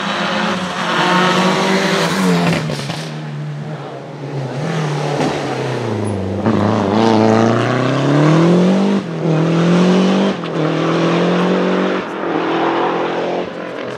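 Lancia Delta HF Integrale Group A rally cars' turbocharged four-cylinder engines revving hard. The pitch climbs, breaks at each gear change, and dips low under braking before climbing again.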